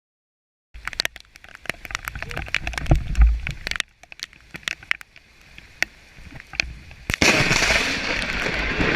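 Thunder from a close lightning strike: a burst of sharp crackling cracks over a deep rumble, thinning to scattered cracks, then a loud, steady rush of noise near the end.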